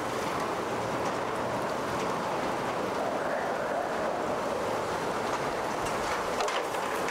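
Hurricane-force wind and driving rain, a steady, even rush of noise with no let-up.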